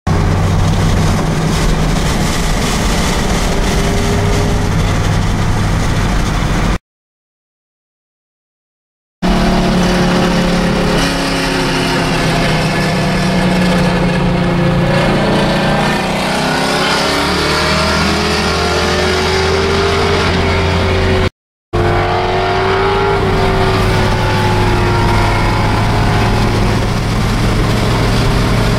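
Car engine and road noise at highway speed, heard inside a moving car, the engine pitch rising and falling as it speeds up and eases off. The sound cuts out for a couple of seconds about a quarter of the way in, and again for a moment about three quarters through.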